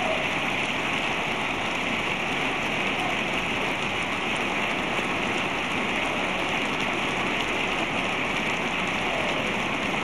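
Steady, unbroken applause from a large standing audience, many hands clapping at once.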